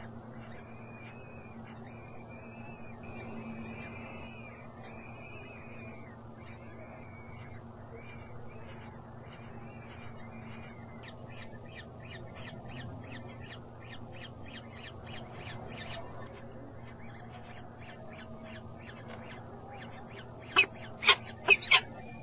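Peregrine falcon chicks begging during a feeding, a string of high chirps repeated about once a second, then quicker short calls. Near the end come four much louder sharp sounds in quick succession, over a steady low hum.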